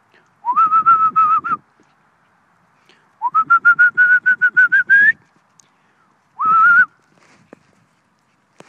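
A person whistling close by, most likely to call a dog: three warbling whistles, the middle one longest and rising in pitch at its end, the last one short.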